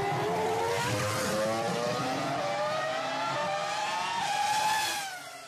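Formula 1 race car engine sound effect, its pitch climbing steadily as the car accelerates. It swells louder near the end, then drops away quickly as the car passes.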